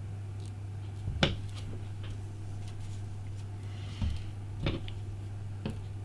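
A few sharp little clicks and taps of small metal hand tools against the parts of an iPhone 5 under repair, the loudest about a second in and three more in the second half, over a steady low hum.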